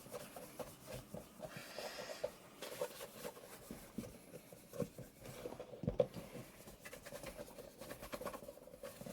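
Light irregular clicking and rubbing of hand work on a shoe, with a brief scrubbing sound about two seconds in, over a faint steady hum.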